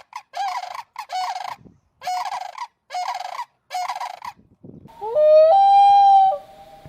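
Bird calls: five short, harsh honking calls in a row, then one loud, long, steady call that slides up at its start.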